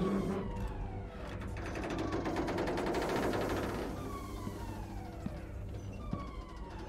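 Starship alarm in a film soundtrack: a falling-pitch wail repeating every second or two over a low steady hum. A loud crackling noise swells about two seconds in and fades near four seconds.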